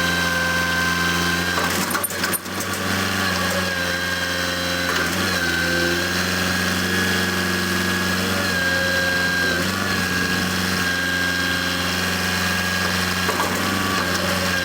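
Tractor engine running steadily, its pitch shifting slightly now and then, with a short clatter about two seconds in.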